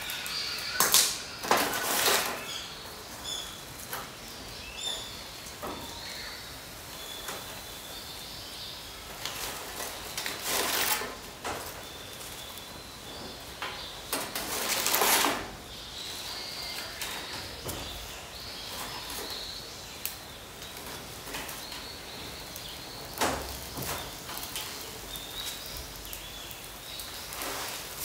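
Dry twigs and paper being handled and rustled in a steel fire pit while a campfire is being lit, with several louder bursts of noise lasting up to about a second. Small birds chirp now and then in the background.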